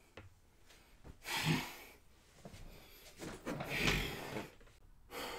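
A man breathing out hard twice, heavy breaths after shouting, the second one near the middle of the stretch and longer.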